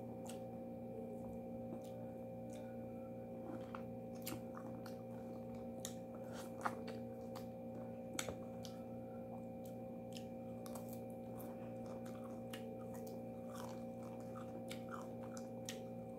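Faint scattered crackles and clicks of an orange being peeled by hand, with some chewing, over a steady background hum of several held tones.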